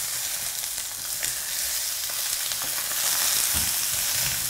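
Beef rib-eye steaks sizzling in a hot frying pan with fennel and tomatoes as they are turned with tongs. The steady sizzle swells about three seconds in, with a few faint clicks and a soft knock.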